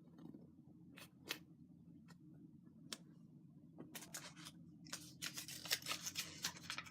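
Scattered light clicks and taps, then paper crinkling and rustling, denser from about four seconds in, as a folded paper slip is drawn from a hat and unfolded.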